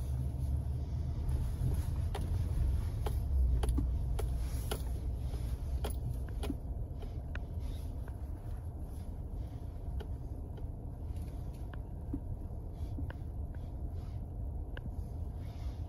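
Low, steady rumble of a pickup truck's engine and tyres heard inside the cab at low speed, with scattered faint clicks; the rumble eases a little after the first few seconds as the truck slows.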